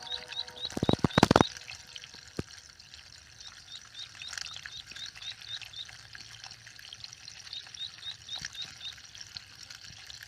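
Water splashing and sloshing, with a few sharp splashes about a second in, then quieter trickling. A small, high chirp repeats steadily through much of it.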